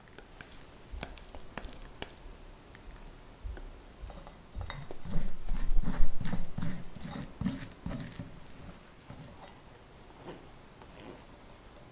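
Silicone spatula pressing thick egg-yolk custard through a fine-mesh metal sieve over a glass bowl: a quick run of rubbing, squelching strokes, about three a second, loudest around the middle, with light clicks of the sieve and spatula before and after.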